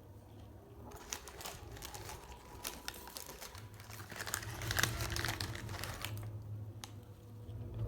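Paper fast-food packaging crinkling and rustling as it is handled, a dense run of crackles that peaks about halfway through and stops about two seconds before the end.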